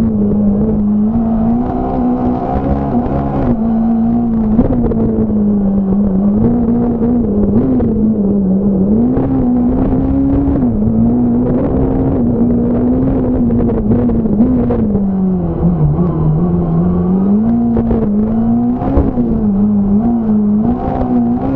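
Fiat Punto S1600 rally car's four-cylinder engine at racing revs, heard from inside the cabin. Its pitch climbs and drops in quick steps as the driver shifts up and down, sinking lowest about fifteen seconds in, with short clicks and knocks throughout.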